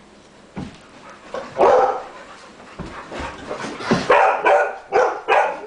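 Golden retrievers barking in play, a loud bark about a second and a half in and a quick run of barks in the last two seconds, with a few dull thuds in between.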